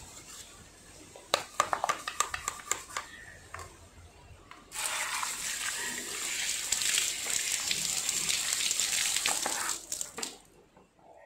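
Light clicking and scraping for the first few seconds, then water running from a tap for about five seconds before it stops abruptly.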